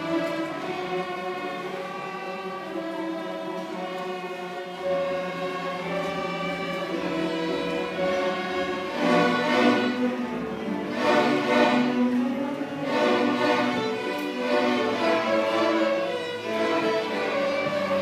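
Student string orchestra of violins, cellos and double basses playing a piece together. It grows louder about halfway through, with strong accented chords.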